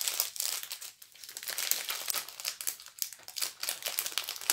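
Plastic film of a diamond painting kit crinkling and crackling as it is handled, a rapid irregular run of crackles.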